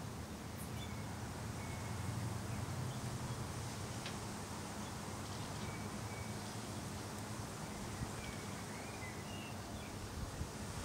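Outdoor ambience: a steady low hum and hiss, with a few faint, short bird chirps scattered through it.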